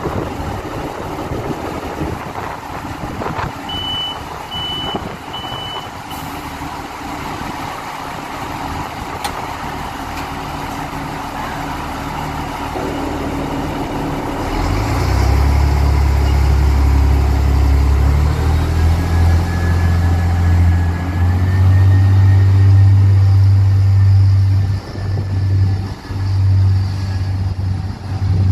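Three short door-closing warning beeps from an Irish Rail diesel multiple unit, then its diesel engines power up for departure, a loud low drone with a faint whine above it that carries on as the train pulls away.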